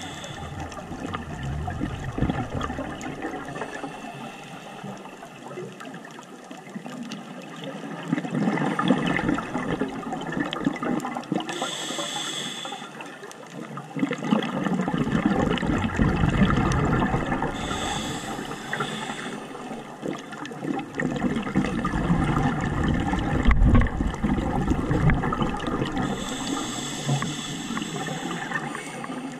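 Scuba diver breathing through a regulator, heard underwater. A hiss on each inhale, about three times, alternates with rumbling, gurgling bursts of exhaled bubbles every several seconds.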